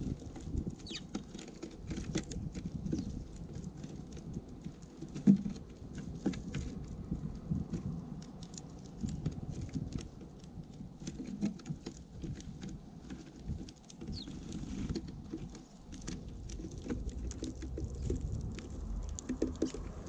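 Small birds feeding right at the microphone: a scattered patter of taps and clicks from beaks and feet on the feeder and seed, with a few brief high chirps, a louder knock about five seconds in, and a low rumble underneath.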